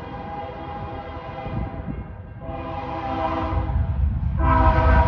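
Freight train's diesel locomotive air horn sounding as it approaches: a long blast that breaks off about two seconds in, a shorter blast of about a second, then a louder long blast near the end. A low locomotive rumble grows underneath as the train draws closer.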